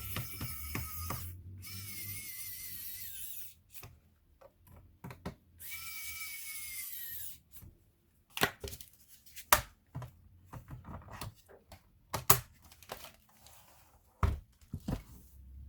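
A small motor whirring in three short runs with a slightly wavering whine, then scattered sharp clicks and knocks.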